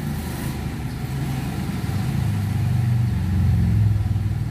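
Honda Civic inline-four engine idling, heard from inside the cabin. Its low hum swells louder about halfway through, then eases near the end. The idle is one the mechanic judges okay now that the battery ground wire is fixed.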